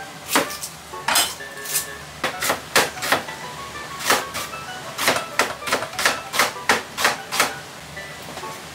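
Kitchen knife cutting an onion on a cutting board: a string of sharp, irregular knocks of the blade on the board, coming faster from about five to seven and a half seconds in.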